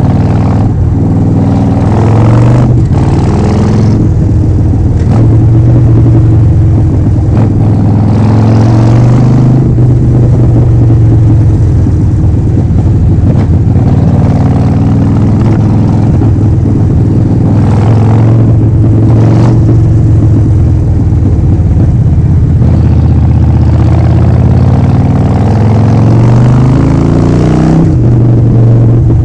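Harley-Davidson Forty-Eight's 1200 cc V-twin through a Vance & Hines full exhaust system, running under way: the engine note rises and falls repeatedly through acceleration and gear changes, with a long steady climb in pitch near the end.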